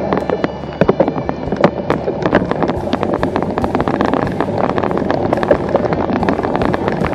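Cyclocross bike ridden fast over a bumpy dirt and pine-needle trail: steady tyre and wind rumble on the microphone, with a dense run of rattling clicks and knocks from the jolting bike.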